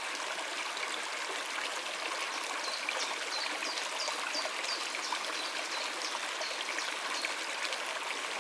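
Steady rush of flowing water from a stream or cascade. Through the middle, a series of short, high chirps repeats over it.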